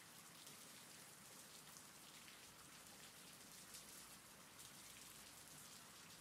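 Faint, steady rain with a soft patter of drops.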